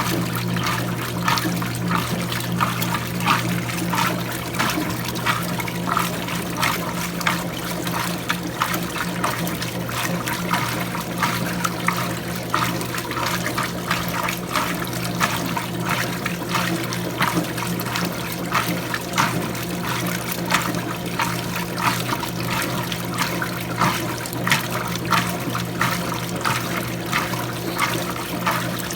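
Electrolux Prosdócimo washing machine running with water: continual irregular splashing and sloshing in the tub, several splashes a second, over a steady low hum.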